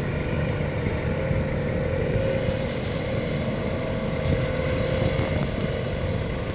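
A 4WD's engine running steadily, a low rumble with a steady whine over it.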